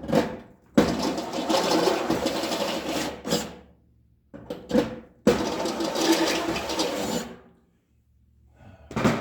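Power drill with a step drill bit enlarging bolt holes in the toaster oven's sheet-metal shell, running in two bursts of a few seconds each with short knocks between.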